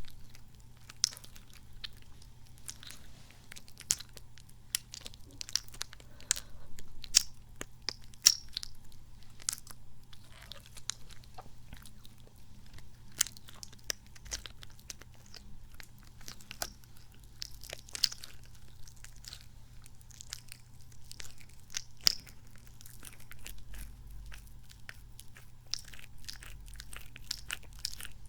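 Small squishy kidney-bean toy handled and squeezed close to the microphone: irregular sticky clicks and squelches, several to a second.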